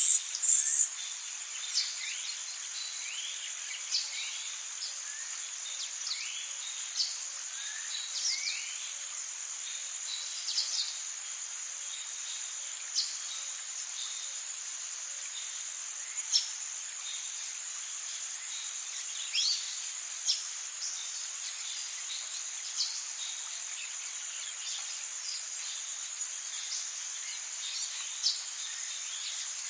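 Insect chorus: a steady high-pitched drone, with short chirps and calls scattered every second or two. Near the start the high buzz swells twice in louder bursts.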